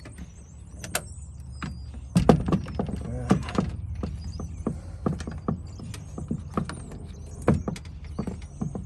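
Irregular clicks, knocks and clatter of hands handling the new window regulator assembly and its wiring inside a Dodge Caravan's door, over a steady low hum.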